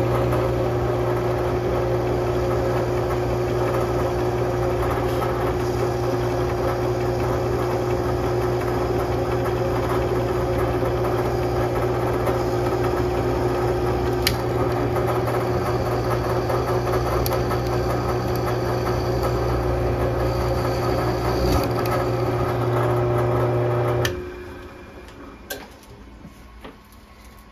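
Drill press motor running steadily, with an end mill cutting a hole in a phenolic carburetor spacer. The motor is switched off a few seconds before the end, followed by a couple of light clicks.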